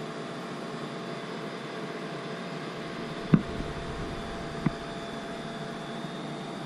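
Steady rushing of a waterfall, with two brief knocks about three and a half and nearly five seconds in.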